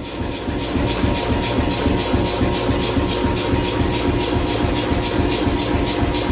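Power hammer running, striking in a rapid, even rhythm over the steady drone of its motor.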